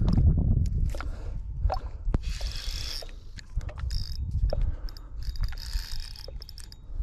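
Fishing reel being cranked in spurts to bring in a hard-pulling hooked bass, its gears clicking and whirring. Low rubbing and handling thumps on the rod are loudest in the first second.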